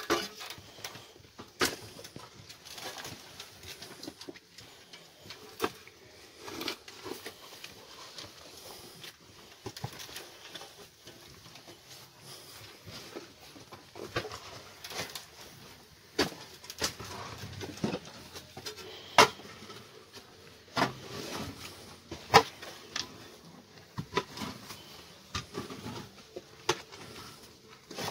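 Irregular knocks and scrapes of a shovel working dry goat and sheep manure, with a few sharper knocks in the second half.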